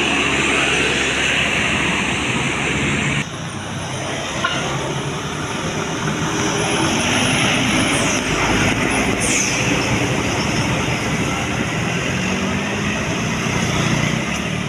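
Heavy road traffic: a large vehicle's engine running and tyre noise as it passes. About three seconds in, the sound drops suddenly in level.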